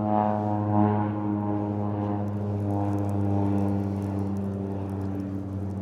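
Engine running steadily, a low even drone that does not change in pitch.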